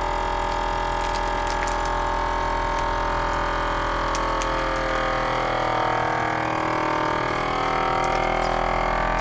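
FoodSaver vacuum sealer's pump running steadily, drawing air out of a bag of fish fillets; about halfway through its hum starts to waver in pitch.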